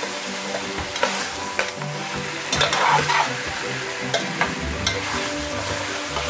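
Chicken pieces in masala frying and sizzling in a steel pot while a metal slotted spoon stirs them, with sharp clinks and scrapes of the spoon against the pot every second or so. The meat is being fried down in its masala (kosha).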